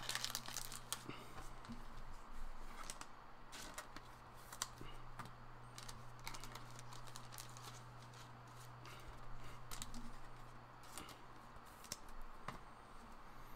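Baseball trading cards being handled: scattered light clicks, taps and rustles of card stock and plastic between the fingers, over a steady low electrical hum.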